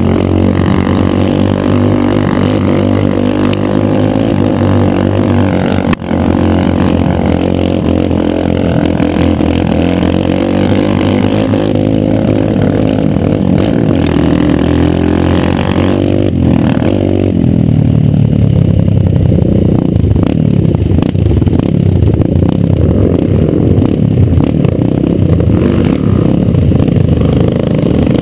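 Kawasaki KLX150 dirt bike's single-cylinder four-stroke engine running at fairly steady revs. After about 17 seconds the bike rides over rougher dirt track and the engine sound gives way to heavier rattling and clattering.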